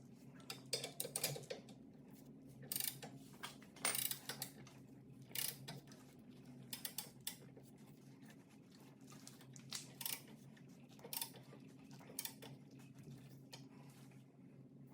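Hand ratchet clicking in short, uneven runs while suspension bolts are turned, over a steady low hum.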